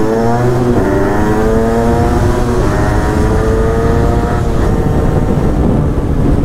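Moped engine at full throttle pulling away from a stop, its pitch climbing in three runs with gear changes about a second in, near three seconds and about four and a half seconds in. After that the engine is mostly buried under a rush of wind and road noise as speed builds.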